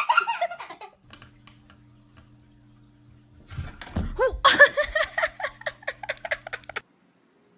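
A person giggling, then, after a cut, a steady low electrical hum with a person laughing loudly over it from about halfway through. The sound cuts off abruptly near the end.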